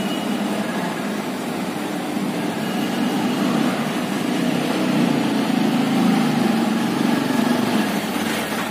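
Motorcycle engine running as the bike rides up a car-park ramp, getting louder as it approaches, echoing in the enclosed underground garage.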